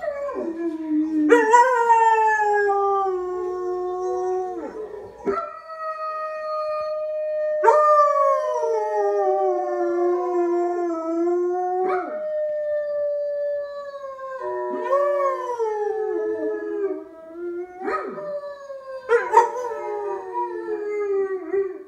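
German shepherd puppy howling along with another German shepherd's howl from a TV: a run of long howls that mostly slide down in pitch, each new one starting high, with the two dogs' howls overlapping.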